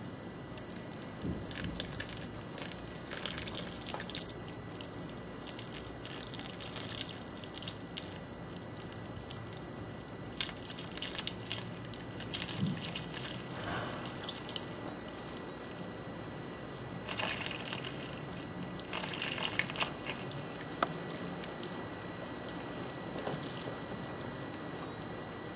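Water poured slowly from a plastic cup onto packed soil in a plastic tub, trickling and dripping in short spells over a faint steady hiss.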